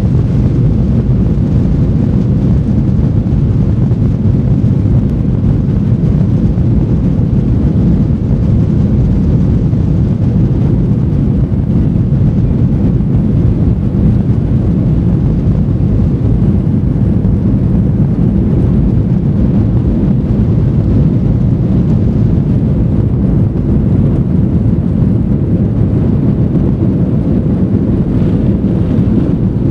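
Cabin noise of a Boeing 737 jet airliner on its takeoff roll: the engines at takeoff power and the runway make a steady, deep rumble, heard from inside the cabin.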